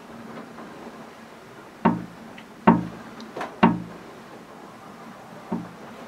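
Four hollow, wood-like knocks, irregularly spaced, starting about two seconds in, the last one weaker, near the end.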